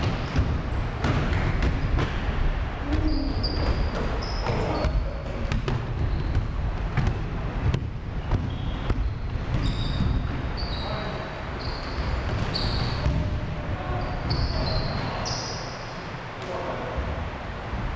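Basketball bouncing and sneakers squeaking on a hardwood gym floor during play, with many short high squeaks clustered a few seconds in and again through the second half, over players' voices.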